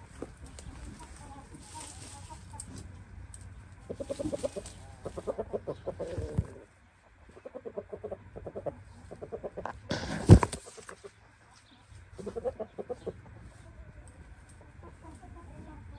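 Shamo chickens clucking in several bouts of quick, rapidly repeated notes, with a brief loud burst of noise about ten seconds in.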